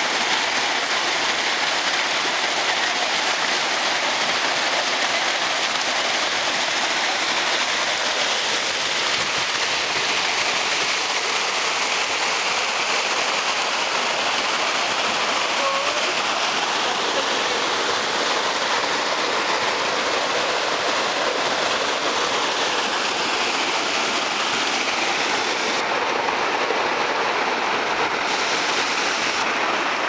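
River water rushing steadily over rock rapids and small cascades, a constant even rush that does not let up.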